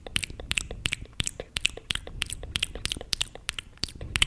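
Close-miked wet mouth sounds of fingers being sucked and licked: an irregular run of sharp smacks and clicks, about four or five a second.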